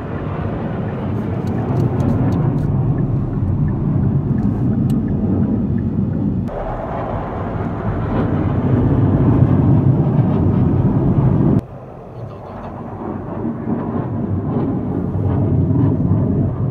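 Rumble of a formation of military jets flying overhead. The sound is steady, with sudden jumps in level and tone about six and a half and eleven and a half seconds in.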